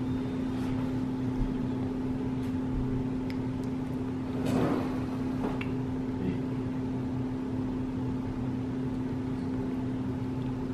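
A steady low machine hum holding one pitch throughout, with a short soft rustle or mouth sound about halfway through.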